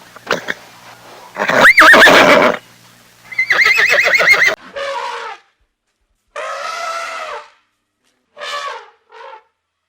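Horse whinnying: a loud call about two seconds in, then a quavering, wavering one. These are followed by several shorter, quieter animal calls.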